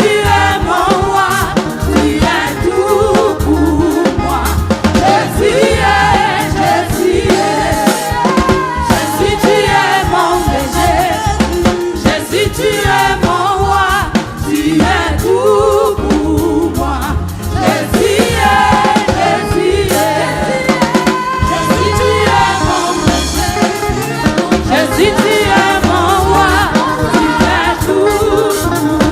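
A gospel choir singing praise with a lead vocalist over a live band with drum kit and a steady, driving bass beat.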